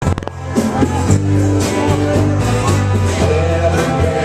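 A pop song playing, with a sung vocal over a steady bass line and regular drum hits. A few sharp clicks come at the very start.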